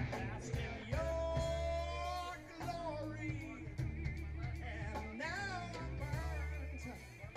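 Live ska-punk band playing: electric guitar, bass and drums, with a lead melody that bends and wavers in pitch.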